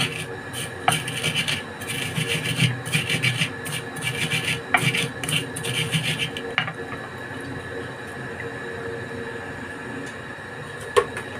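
Wooden pestle grinding fried garlic and shallots into a paste in a shallow clay mortar: rough, repeated rubbing strokes that stop about six and a half seconds in. A single sharp knock near the end.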